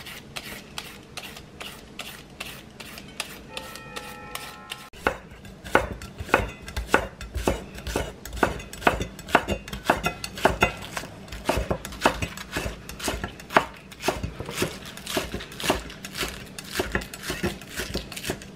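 Chef's knife slicing spring onions on a wooden cutting board: steady knocks of the blade on the board, about two to three a second, starting about five seconds in. Before that, the fainter scrape of a julienne peeler shredding a carrot.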